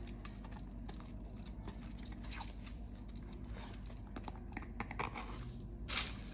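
Protective film being peeled off a clear plastic paint palette: faint, irregular small crackles and crinkles, with a louder crackle just before the end.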